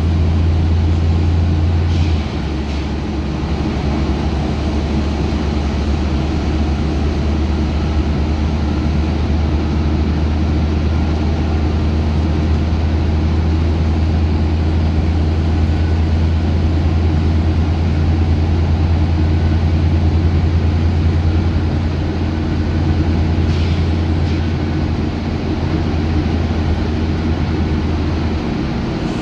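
Scania N94UB single-decker bus's rear-mounted diesel engine running under way, heard from inside the saloon as a steady low drone with road noise. Its note and loudness drop about two seconds in and shift again near the end.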